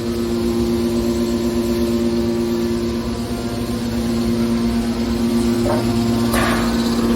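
Hydraulic metal baler running: a steady hum from its pump and motor, with two brief noises near the end, the second louder.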